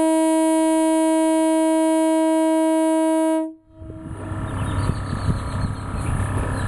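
Trumpet train horn on 100 psi air blowing one loud, steady note that cuts off suddenly about three and a half seconds in. After a brief gap, a rough rumbling noise with no clear pitch follows.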